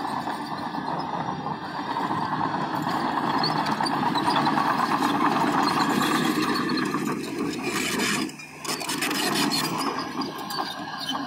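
Heavy diesel construction machinery running and working, a rough, steady mechanical noise that grows louder over the first few seconds and drops out briefly about eight seconds in.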